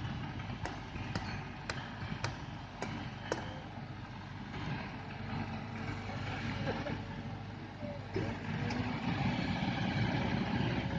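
Heavy diesel machinery running steadily, with a run of about six sharp clicks, roughly two a second, in the first few seconds.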